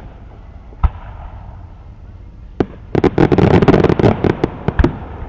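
Fireworks crackling: a single sharp pop about a second in and another at about two and a half seconds, then a dense run of rapid crackling pops lasting about two seconds, with a few louder cracks at its end.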